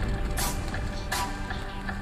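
Background music with steady held tones, broken about half a second and a second in by two short bursts of hiss.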